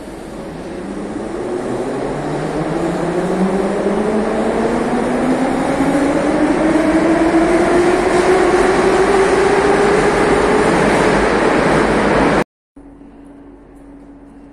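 Metro train pulling out of the station: its traction motors whine, several tones rising steadily in pitch as it gathers speed, over a rumble of wheels that grows louder. It cuts off suddenly near the end, leaving a quieter steady hum.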